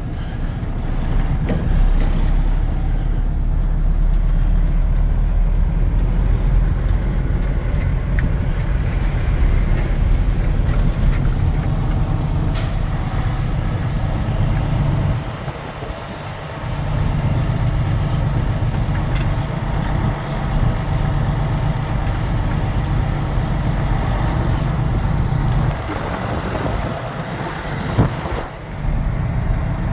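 Semi-truck's diesel engine running as the empty rig drives slowly, easing off briefly a little past halfway and again near the end. One brief sharp sound about twelve seconds in.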